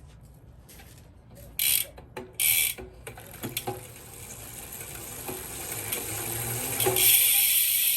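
Freehub ratchet of a Hunt Carbon Aero 50 rear wheel clicking as the wheel spins, with two short loud bursts about two seconds in, then a buzz that builds steadily and is loudest near the end.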